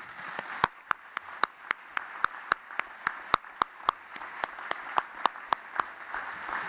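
Congregation applauding, with one clapper close by whose sharp, evenly spaced claps, about four a second, stand out above the crowd.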